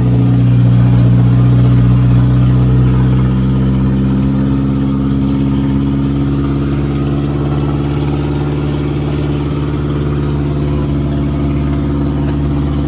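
Motor vehicle engine running steadily at a constant speed, a steady low hum of several pitched lines that holds without revving up or down.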